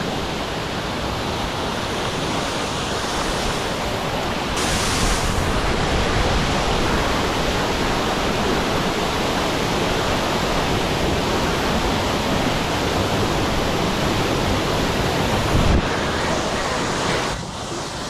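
The steady rush of a waterfall heard from its plunge pool, mixed with water lapping and splashing right at the camera, which is held at the surface. A brief brighter swish of water comes about four and a half seconds in.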